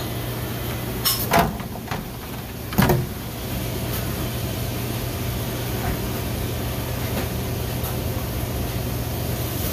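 Scotsman C0330 cube ice machine running with a steady hum, with a few sharp knocks about one and three seconds in.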